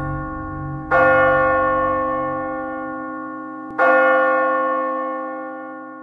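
A bell tolls twice, about a second in and again about three seconds later, each stroke ringing on and slowly fading.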